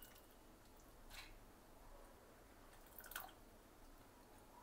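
Faint wet squelches and drips as a hand scoops soaked urad dal out of its soaking water, in two brief bursts about a second in and about three seconds in.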